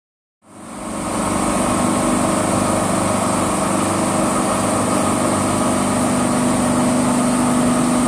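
MAXIS automatic carpet washing machine running, its rotating disc scrub brushes and drive motors giving a steady mechanical hum with a broad hiss over it. The sound fades in over the first second, then holds level.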